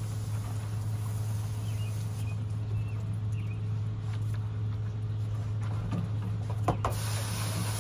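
A steady low hum, with a few faint high chirps about three seconds in and a sharp knock near the end.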